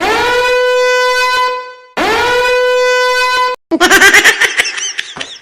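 A horn sound effect blares twice, each blast about a second and a half long, scooping up in pitch to one steady note. A loud, harsh, wavering distorted sound follows near the end.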